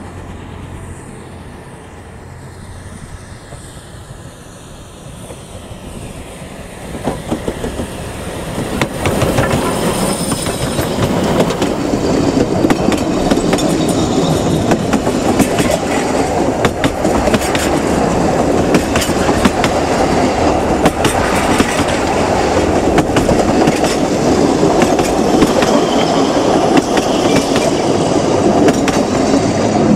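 Narrow-gauge steam train hauled by Beyer-Garratt NG130 approaching, growing louder from about seven seconds in, then its coaches rumbling past close by with a clickety-clack of wheels over rail joints.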